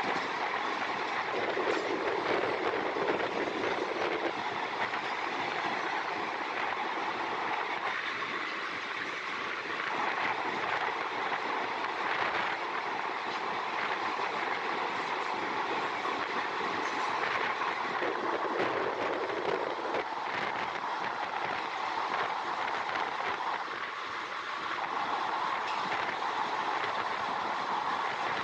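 Steady running noise of a train heard from an open carriage window, mixed with the wheel and rail noise of a long freight train of BOXN open wagons passing on the adjacent track. The noise stays steady, with a few shifts in tone.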